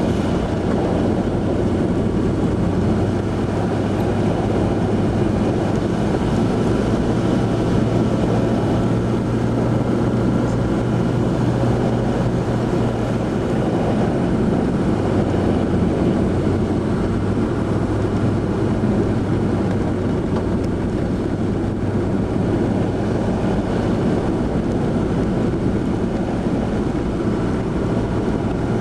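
Vehicle driving on a snow-covered road, heard from inside the cab: steady engine drone with road and tyre noise. The drone dips slightly in pitch about halfway through.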